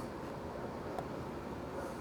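Quiet workshop room tone, a faint steady hiss, with one small click about a second in.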